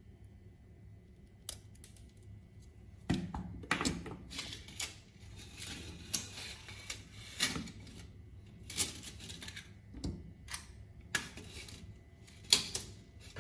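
Irregular sharp clicks, taps and short scrapes of small hard objects being handled and set down on a wooden tabletop: scissors, a 1.5 V battery and the plastic housing of an LED bulb. A single click about a second and a half in, then busy clatter from about three seconds in.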